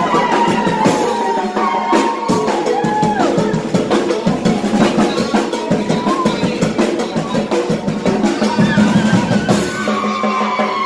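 Marching percussion band of bass drums and snare drums beating a fast, driving rhythm, with a man singing into a microphone over the drums.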